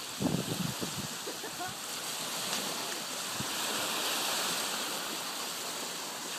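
Small waves washing and breaking on a beach in a steady surf wash that swells gently midway. A few low bumps come in the first second.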